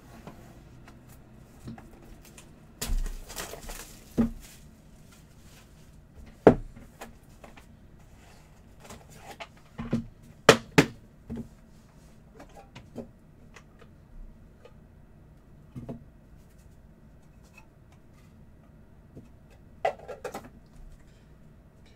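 Packaging and a clear plastic trading-card case handled on a table. There is a brief rustle about three seconds in, then scattered clicks and knocks as the plastic case is opened and set down, the loudest a pair of sharp knocks about ten and a half seconds in. A short rustle of cards comes near the end.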